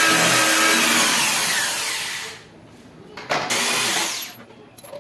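A power tool running on wood, its motor winding down and stopping after about two seconds, then a second, shorter burst.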